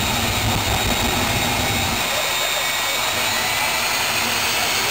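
Jet engine of a jet-powered show truck running with the afterburner lit, a loud, steady rushing noise. Its deep low rumble drops away about two seconds in while the rushing goes on.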